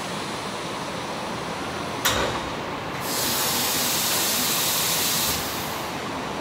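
Cincinnati Lamb FTV5 five-axis machining centre running steadily during an automatic tool change at its spindle head. A sharp clunk comes about two seconds in, and about a second later compressed air hisses loudly for about two seconds, then stops.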